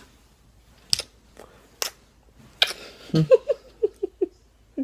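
Two sharp clicks or smacks, then a short burst of giggling, a quick run of about six 'ha' pulses.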